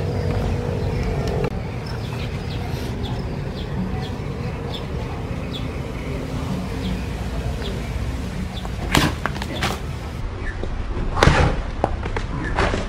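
Homemade pop-pop cracker of match-head powder and pebbles wrapped in tissue and tape, thrown against a concrete wall and going off: two sharp pops about two seconds apart near the end, the second the louder.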